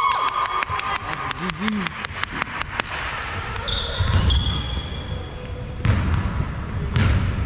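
Basketball bouncing on a gym floor: a quick run of sharp clicks in the first three seconds, then heavy thuds about 4, 6 and 7 seconds in, with short high squeaks between them.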